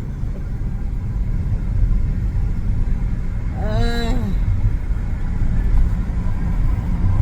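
Steady low road and engine rumble inside a moving car, with one short hum-like voice sound about four seconds in.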